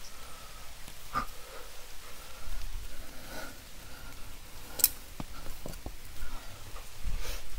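A climber breathing hard and sniffing while moving on the rock, with a few sharp clicks of hands or gear against the stone.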